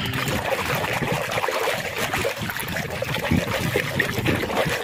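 A hand scrubbing and kneading a muddy plastic toy under soapy water in a plastic tub: continuous irregular sloshing, squelching and splashing of water and foam.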